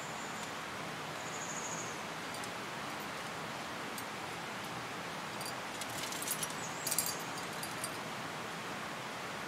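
Steady outdoor hiss of wind in the trees, with two short high peeps in the first two seconds. Between about six and seven seconds in comes a quick cluster of light metallic clinks from climbing gear such as carabiners on the rope.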